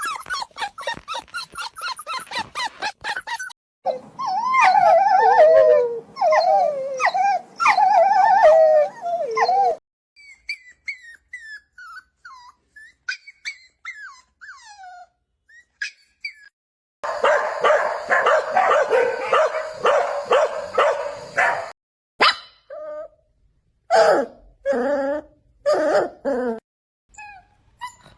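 A run of dog sound-effect clips: a quick string of yapping barks, then wavering whines, then high thin puppy whimpers and squeaks, then a burst of fast yapping and a few single barks near the end.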